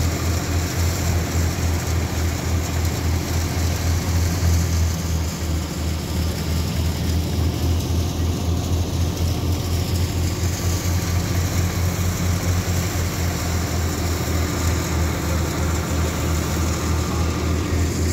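Farm tractor's diesel engine running steadily at a constant speed, with a low, even throb.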